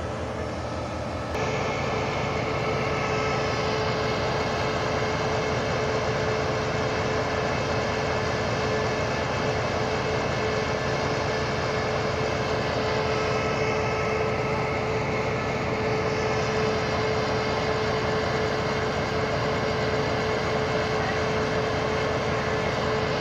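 SRT CSR (QSY) diesel-electric locomotive No. 5204 standing and idling close by. Its engine runs steadily with a constant whine over it, a little louder from about a second and a half in.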